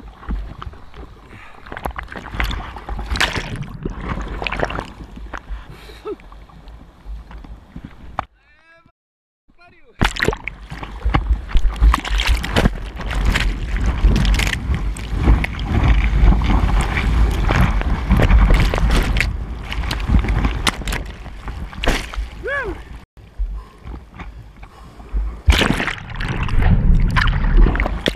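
Seawater sloshing and splashing around an action camera at the surface. About eight seconds in, the sound drops almost to nothing for a second and a half as the camera goes under on a duck dive. It then comes back as loud rushing, churning whitewater with a deep rumble.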